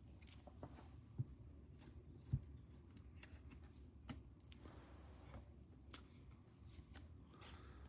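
Faint handling of trading cards and pack wrappers: scattered light clicks and short rustles, with two soft knocks about one and two and a half seconds in.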